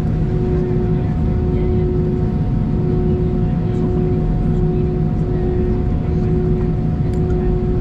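Cabin noise of an Airbus A319 taxiing: a steady low drone from the engines at idle, with a steady whine above it.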